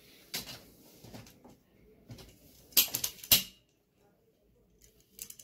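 Light clicks, then two sharp plastic knocks about three seconds in, from handling the tool bag's telescoping pull handle.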